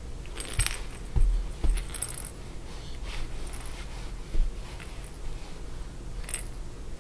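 Light jingling and rustling from a baby's plush monkey toy as she grabs and shakes it, with a few soft bumps against the crib mattress.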